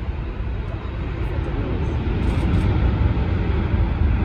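Airbus A380's four jet engines at takeoff thrust, a deep rumble growing louder as the airliner accelerates down the runway.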